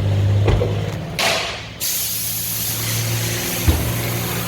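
Honda CR-V engine idling steadily, with the AC commanded on but the compressor clutch not engaging. A short rush of hiss about a second in cuts off sharply, and there is a single knock near the end.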